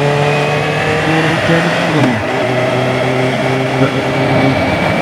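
Suzuki GSR 750 inline-four with a new aftermarket slip-on exhaust, running under way on the road. Its note drops and comes back up about two seconds in as the throttle eases, then holds steady.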